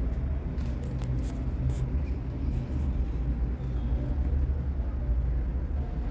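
Steady low rumble, with faint scratchy rustles of cotton blouse fabric being handled and folded for hand hemming.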